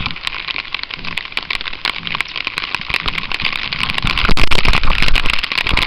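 Heavy rain falling, a dense crackle of drops hitting close to the microphone, swelling louder for a moment about four seconds in.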